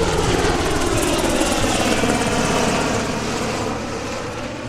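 Lockheed C-130J Super Hercules flying past, its four turboprop engines and six-bladed propellers loud. The pitch falls as it goes by, and the sound fades toward the end.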